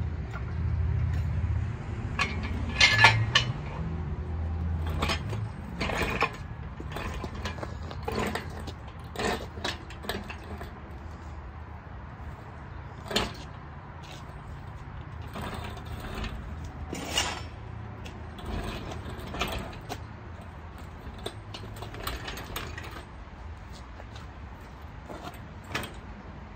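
Red hydraulic engine hoist at work lifting a V8 engine: irregular metal clanks and clicks from the hoist's pump handle, boom and chain. There is a low rumble in the first few seconds.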